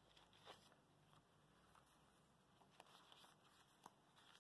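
Near silence, with a few faint soft rustles of banknotes being slid out of a plastic binder envelope and handled.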